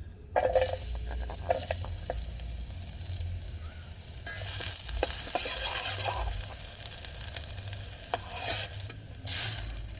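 Food sizzling in a pan while being stirred with a utensil, with scraping and clicking against the pan. The sizzle swells about halfway through and again near the end.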